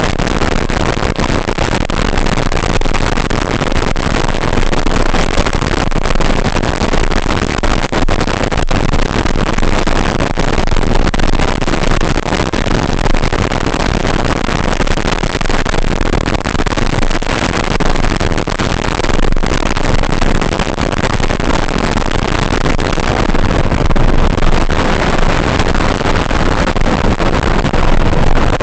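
Steady, loud rushing noise picked up by the RC Mustang's onboard FPV camera in flight, with no distinct motor tone in it.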